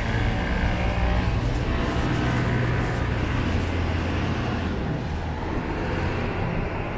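Road traffic: a motor vehicle's engine running close by, a steady low hum over traffic noise.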